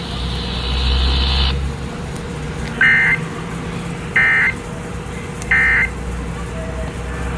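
Three short bursts of warbling EAS/SAME digital data tones from a NOAA weather radio, about a second and a half apart: the end-of-message signal closing the flash flood warning. A low steady rumble runs underneath.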